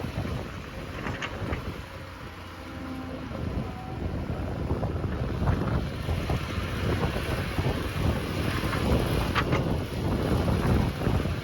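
Wind buffeting the microphone, a gusty low rumble with a few light clicks.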